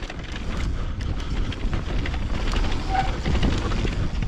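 Mountain bike rolling fast down a dirt singletrack: tyres on the dirt and the bike rattling and clicking over the bumps, under a steady low wind rumble on the camera microphone.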